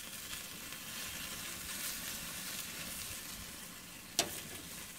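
Hamburger patty sizzling on a hot grill as its juices cook out, a steady hiss, with one sharp click about four seconds in.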